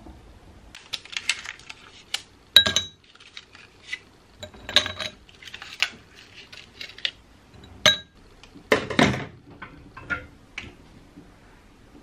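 Ice cubes dropped into a tall drinking glass, clinking against the glass and each other in a series of irregular sharp clinks with a brief glassy ring.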